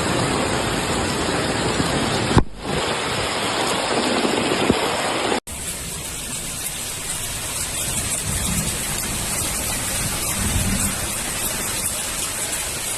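Rushing water in a flash flood: a loud, steady, even noise that changes abruptly about two and a half and five and a half seconds in.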